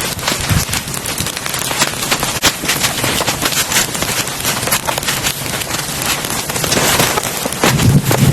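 Heavy rain falling, a steady hiss with many sharp drop impacts crackling on a surface.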